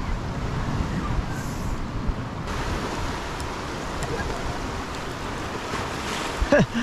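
Wind buffeting the microphone over the wash of surf on the rocks, the surf's hiss growing a little louder after about two and a half seconds.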